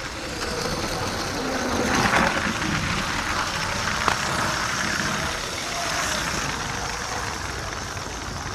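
LEGO train engine powered by two Power Functions motors, running along plastic track with a steady whirring, rolling clatter, heard from a camera riding on the train. There is one sharp click about four seconds in.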